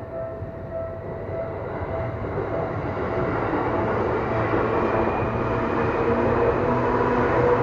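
Seibu Railway electric train approaching and passing the level crossing, its rumble growing steadily louder. At first the crossing's warning bell rings in quick, even pulses, then it is drowned out by the train.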